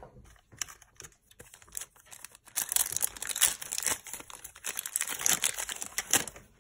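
Foil wrapper of a Pokémon Unified Minds booster pack crinkling and tearing as it is ripped open by hand. It is loudest from about two and a half seconds in until near the end, after a few light clicks and rustles.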